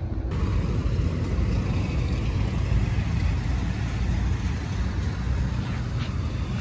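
Steady low rumble of wind buffeting the microphone, mixed with road traffic running on the highway.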